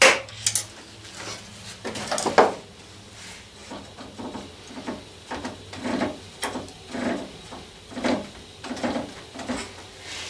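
A wooden mallet knocks on a screwdriver to drive a steel slide rod out of a DeWalt DW733 thickness planer, several sharp knocks in the first two and a half seconds. Then the rod is worked out of its bore in the planer's frame with a run of softer knocking and sliding metal sounds, about two a second.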